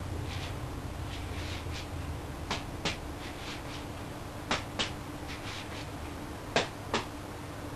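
Juggling balls slapping into the hands as they are caught: a run of soft smacks, the loudest coming in quick pairs about every two seconds, over a steady low room hum.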